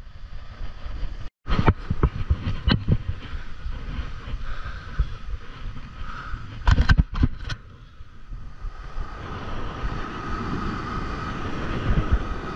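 Wind buffeting the microphone over breaking surf, with sharp knocks as the rod and spinning reel are handled: a cluster about two seconds in and another about seven seconds in.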